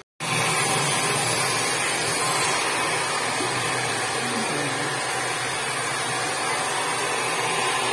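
Handheld hair dryer blowing steadily: an even rush of air with a low motor hum underneath.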